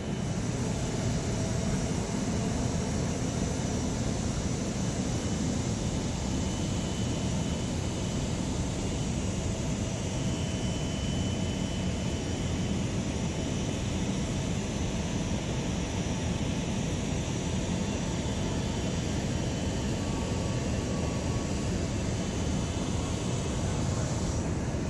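Steady jet-aircraft noise around a parked Boeing 777-300ER waiting for pushback: a constant whine with a low rumble beneath it and a few faint high tones, unchanging throughout.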